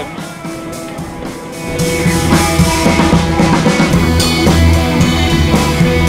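Background music: a quieter opening, then drums come in with a heavier low end about two seconds in and the track gets louder.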